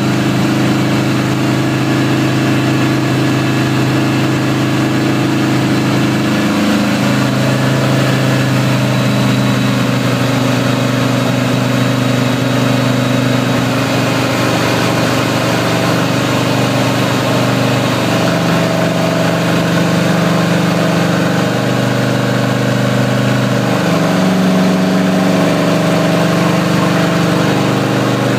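Yamaha VMax Gen II's V4 engine running steadily on a dynamometer under cruise control. Its note changes a few times as the throttle opens by itself to hold the same speed against rising dyno load.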